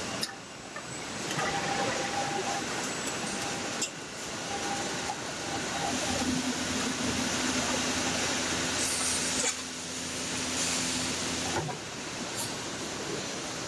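Car assembly line machinery running: a steady hiss and din of factory air and machines. A low steady hum sets in about six seconds in and stops sharply with a click near the end.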